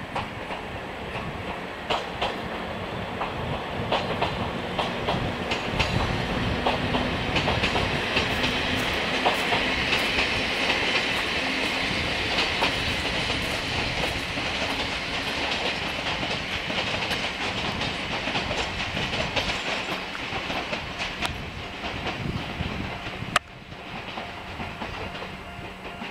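Chichibu Railway 1000 series electric train (ex-JNR 101 series) pulling out of the station, its wheels clacking over rail joints and points as it gathers speed. A sharp click about 23 seconds in, after which it is quieter.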